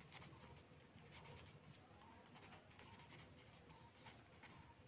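Faint scratching of a pen writing a word on paper, in many short, irregular strokes.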